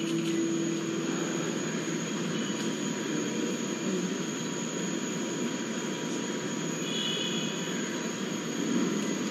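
Steady, even background noise of a large hall, a rushing hiss with a faint steady tone over it and no distinct events.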